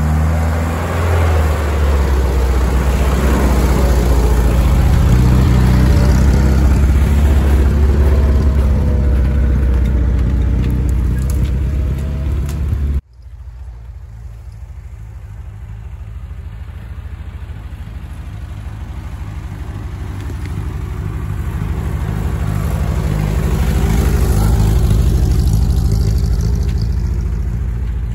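1967 GAZ-69's four-cylinder side-valve petrol engine pulling the jeep through snow on a forest track, loud and close. About 13 seconds in the sound drops off suddenly, then the engine grows louder again as the car approaches and passes, easing off near the end.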